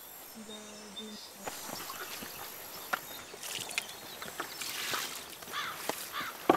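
Quiet outdoor rustling and scuffing of people moving about and handling cloth, with scattered small knocks that grow louder from midway. A few short bird chirps come near the end, and a brief low voice sound about half a second in.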